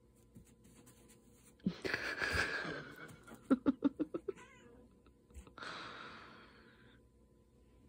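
Domestic cat hissing and growling in defence at a dog standing over her. There is a long hiss about two seconds in, then a quick stutter of short growls, then a second, fading hiss.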